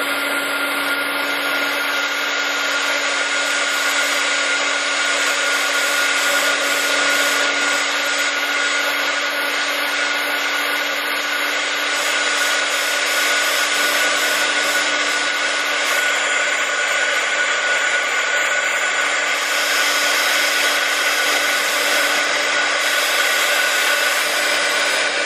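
Handheld heat embossing gun running steadily, a fan whir with a constant low hum and a higher whine, as it heats embossing powder on a coloring page.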